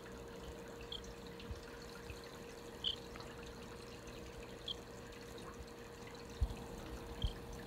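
Baby starling giving four short, soft high peeps, a second or two apart, with a couple of low bumps near the end.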